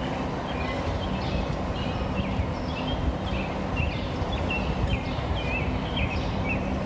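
A small bird chirping in a quick series of short high notes, over a steady low rumble and hum.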